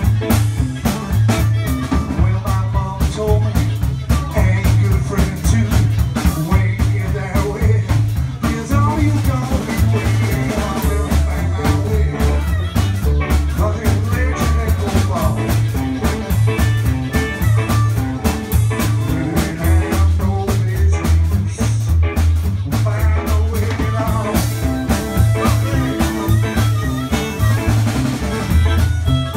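Live electric blues band playing an instrumental passage: electric guitar, electric bass and drum kit driving a steady beat, with a harmonica played cupped against a microphone.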